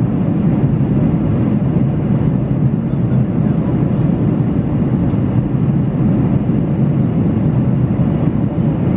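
Steady cabin noise of a Boeing 737-800 in flight: an even, low rumble of the engines and air rushing past the fuselage.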